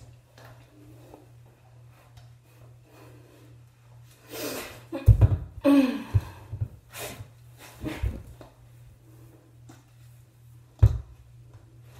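Handling noises in a small bathroom: a short hiss about four seconds in, then a cluster of thumps and knocks with a brief falling squeak, and a single loud knock near the end as a plastic conditioner bottle is handled.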